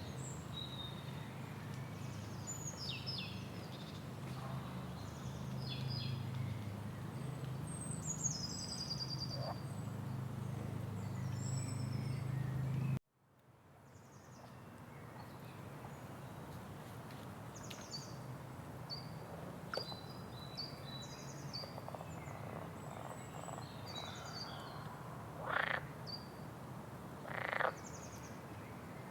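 Rainforest ambience: frogs croaking and birds giving scattered high chirps and whistles. A steady low drone sits under the first half. The sound cuts out abruptly about halfway and fades back in, with a few short, louder croaks near the end.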